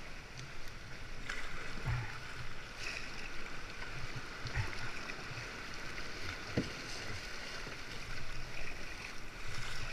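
Sea kayak being paddled: water splashes from paddle strokes about every second and a half, over steady sloshing water.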